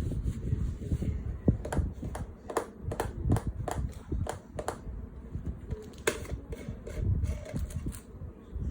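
A run of sharp clicks or taps, about three a second for a few seconds, then a couple more, over low rustling handling noise.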